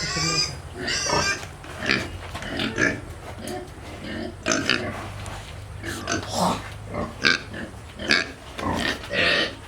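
Pigs grunting and squealing, many short calls one after another, with a high squeal at the very start.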